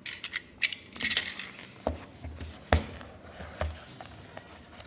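A blade cutting the seal tape on a cardboard phone box, with a short rasp of the cut about a second in, followed by a series of small clicks and knocks as the box is handled and opened.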